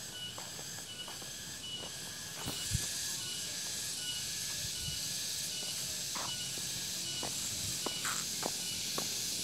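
Outdoor ambience: a short high chirp repeating about twice a second, a steady high hiss that grows louder about two and a half seconds in, and scattered footsteps on pavement.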